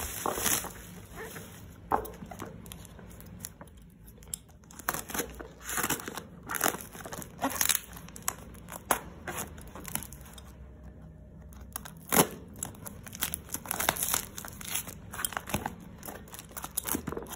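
Shipping packaging being unwrapped by hand: irregular crinkling, rustling and tearing of the wrapping, with scattered sharp crackles and a short lull about two thirds of the way through.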